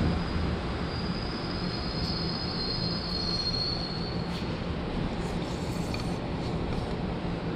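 Montreal Metro MR-63 subway car rolling along with a steady rumble and hum, and a high steady squeal that fades out about four seconds in; a few faint clicks follow.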